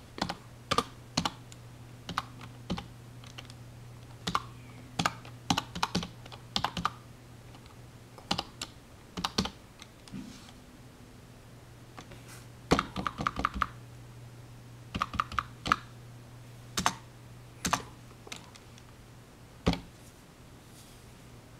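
Typing on a computer keyboard: irregular keystrokes, some single and some in short quick runs, over a steady low hum.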